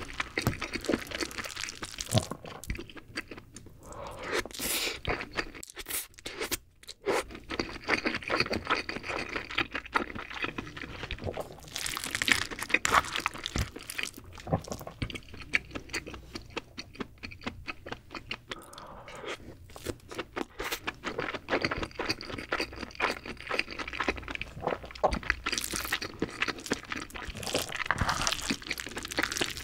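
Wooden spoon stirring and scraping rice mixed with crab meat inside a king crab's shell, close-miked: dense crackly scraping and small clicks as the spoon works against the hard shell, with busier bursts every few seconds.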